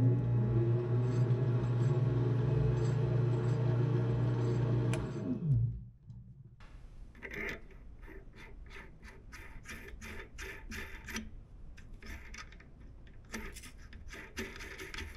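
Benchtop metal lathe running with a steady motor hum, then spinning down and stopping about six seconds in. After that come light metallic clicks and scrapes as a mating part is screwed by hand onto the freshly cut thread of a steel shaft to check the fit.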